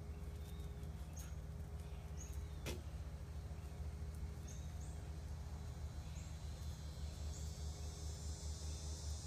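Quiet outdoor ambience: a steady low rumble with short, high chirps repeating about once a second, and a single sharp click a little under three seconds in.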